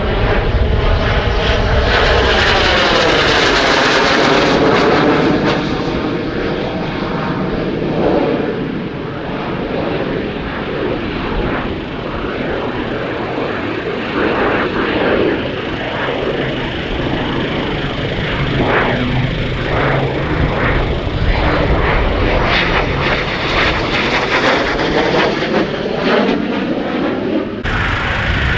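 Twin General Electric J85 turbojets of a Cessna A-37B Dragonfly in display flight, the jet noise swelling with a sweeping, phasing tone as it passes a few seconds in and again about twenty-four seconds in. The sound changes abruptly near the end.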